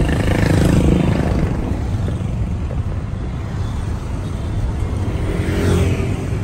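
Vehicle engine and road noise: a steady low rumble, with an engine note swelling near the start and again about five seconds in.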